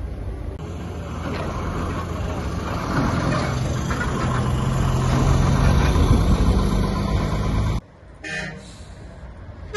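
Heavy tanker truck's engine running as it drives past close by, growing louder toward the middle, then cut off suddenly near the end; a brief horn toot follows.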